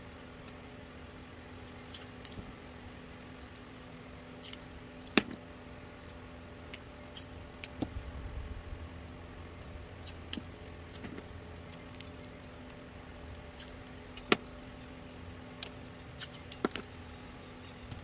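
Scattered clicks and taps of hands handling masking tape and cut plastic LED strip pieces on a workbench, with sharper knocks about five and fourteen seconds in and a cluster near the end, over a steady low hum.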